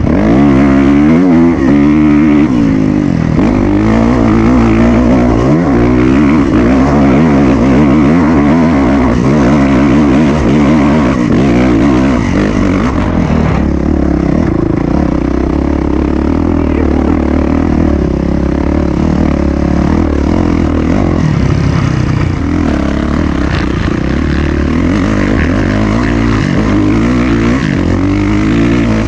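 Trail motorcycle engine running under load, its pitch rising and falling again and again as the throttle is opened and closed.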